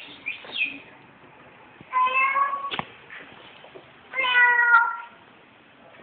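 Parrot mimicking a cat: a few short squeaky calls, then two drawn-out meows about two seconds apart.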